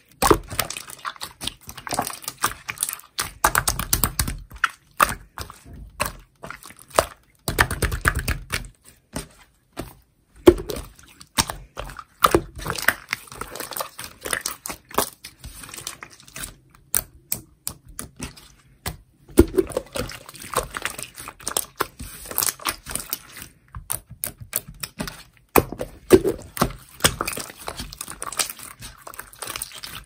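Clear slime being stretched, pressed and folded by hand, giving off irregular sticky clicks and snaps, with a few longer squishing passages.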